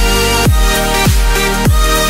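Electronic dance music: a deep, falling kick drum about every 0.6 seconds under sustained synth chords.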